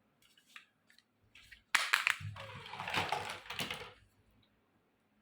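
A few light clicks of small plastic toy pieces, then about two seconds of loud crinkling and crackling from handling plastic packaging of a miniature toy kitchen set.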